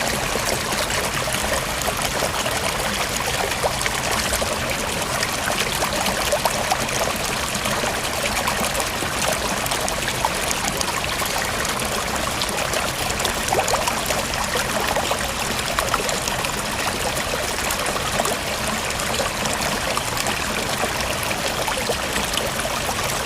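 Steady rush of running water in a mountain stream.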